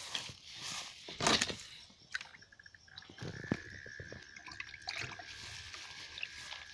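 Rustling and handling noise from a handheld camera being carried along, with scattered knocks and a loud rustling burst about a second in. About three seconds in, a steady high-pitched tone begins and holds to the end.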